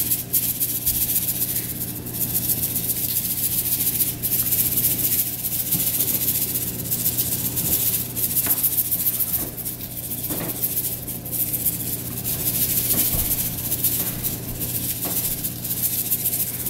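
Kosher salt shaken from a Morton cardboard canister onto a raw brisket, a rattling hiss of salt grains that rises and falls with each shake.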